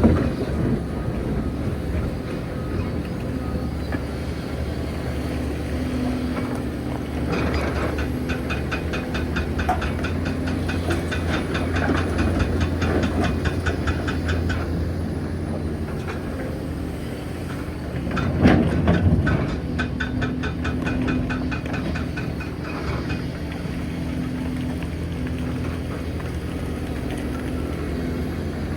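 Hitachi Zaxis 490LCH excavator's diesel engine running steadily, with a fast, even clatter that comes and goes and a louder bang about eighteen seconds in.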